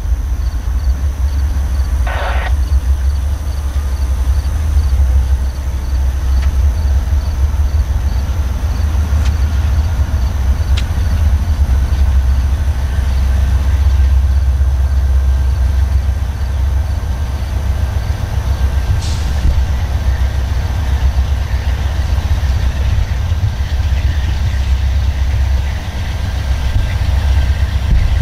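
Norfolk Southern diesel locomotives approaching, a steady low engine rumble, with crickets chirping faintly and evenly in the background.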